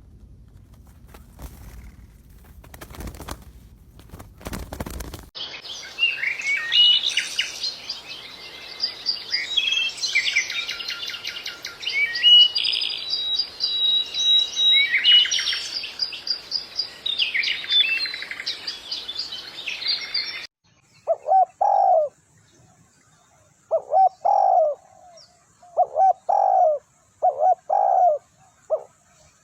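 Bird sounds in three abrupt cuts: a few seconds of clattering rustle like wingbeats, then a dense chorus of high chirping and twittering songbirds, then, about two thirds in, a series of short, falling, lower-pitched calls repeated in small groups.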